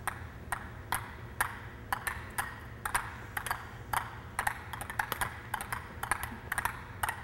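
Table tennis balls bouncing on the rubber faces of rackets in light, repeated taps: a forehand ball-bouncing control drill. Several players bounce at once, so the taps start at about two a second and grow denser and uneven as they overlap.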